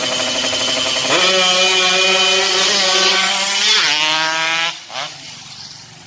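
Yamaha RX-King two-stroke single-cylinder engine being revved: the pitch jumps up about a second in and holds high, climbs again near four seconds, then the throttle is shut and the sound drops away sharply, with one brief blip just after.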